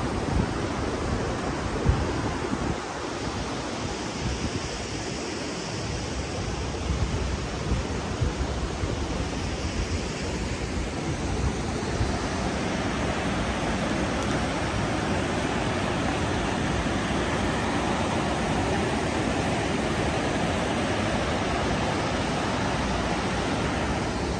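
Mountain stream rushing over boulders and small cascades, a steady hiss of running water.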